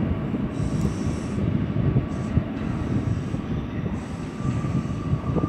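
R179 subway train pulling away into the tunnel: a steady rumble of wheels on rail as it recedes, with a faint steady high whine above it.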